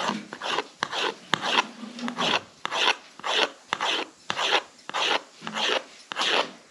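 Kitchen knife slicing rolled noodle dough on a floured metal tray: a rasping scrape with each cut, at about two strokes a second.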